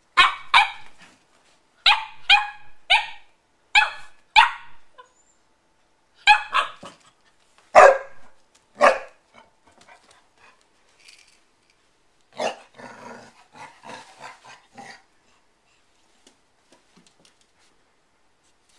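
Beaglier puppy play-barking: about a dozen short, sharp, high-pitched barks over the first nine seconds, then a rougher, noisier stretch of about two seconds, with little after.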